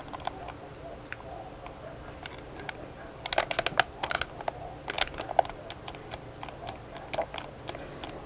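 Plastic buttons on a vintage Ken-Tec alarm clock being pressed: scattered sharp clicks, with a quick run of them about three to four seconds in, as the alarm is being set.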